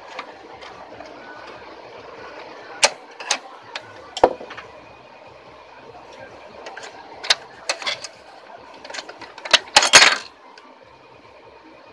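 A thin metal tool clicking and scraping against the plastic paper path of an HP DeskJet GT 5810 while working out a paper clip caught on the paper sensor, the jam behind the printer's E4 error. Scattered sharp clicks, with a louder burst of clicking about ten seconds in.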